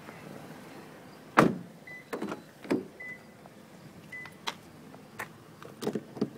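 Handling a car's rear door: a sharp knock about a second and a half in, then a series of lighter clicks and taps from the door handle, latch and trim panel.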